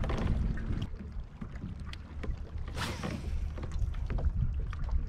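Wind rumbling on the microphone and water lapping against a plastic fishing kayak's hull, with small knocks and clicks and a short hiss about three seconds in.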